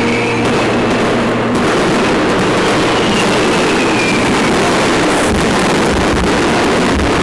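Aerial fireworks going off: a continuous dense crackle and popping of shells bursting overhead, with heavier low thuds from about five seconds in.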